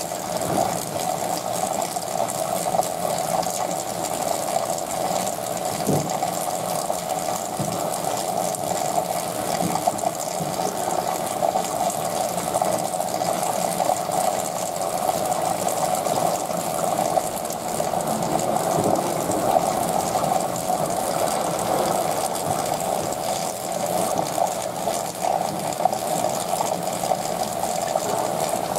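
Aquarium water circulation: a steady rush of running water with a pump-like mechanical hum underneath, unchanging throughout, with one or two faint soft knocks.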